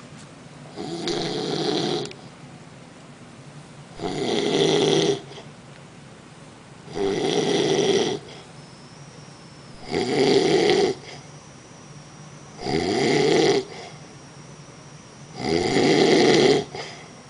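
A sleeping man snoring loudly in a slow, even rhythm: six snores about three seconds apart, each lasting about a second, with quiet breaths in between.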